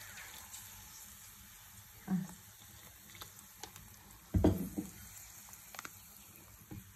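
Water being poured over a container of broken pieces, which hiss and crackle as they soak. A louder knock about four and a half seconds in, with scattered small clicks.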